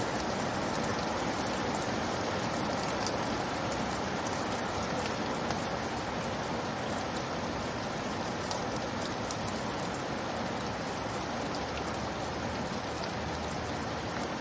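Steady rainfall: an even hiss with scattered small drop ticks.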